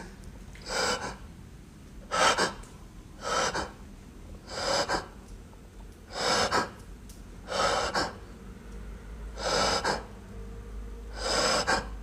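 A man breathing heavily and audibly, about eight hissy breaths a second or so apart.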